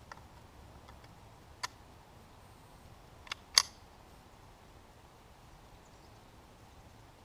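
Metallic clicks of a Ruger 10/22 semi-automatic .22 rifle's action being worked by hand: a few light clicks, a sharper click, then a click and a loud snap with a short ring about three and a half seconds in, like the bolt drawn back and let slam forward. The shooter says the rifle is jamming.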